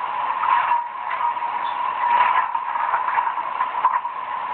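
Coal-shovelling sound effect from a Digitrax SDH164D DCC sound decoder, played through its small stock 32-ohm speaker: a run of scraping strokes, about two a second.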